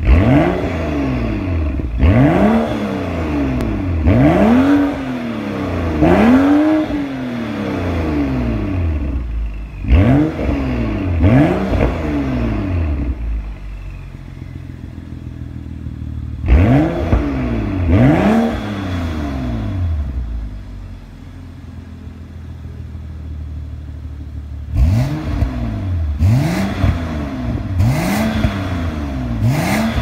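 BMW F30 335i's turbocharged 3.0-litre inline-six, breathing through an aftermarket Fi valved exhaust, blipped from idle while stationary. Each rev rises and falls back quickly: four blips, a pause at idle, two blips, two more, a longer idle, then four quick blips near the end.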